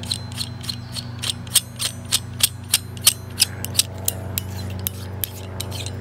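Knurled screw-gate sleeve of a Metolius locking carabiner being twisted round and round by hand, giving sharp metallic clicks about three times a second over a steady low hum. It is the slow, many-turn locking action: about 15 twists to fully lock the gate.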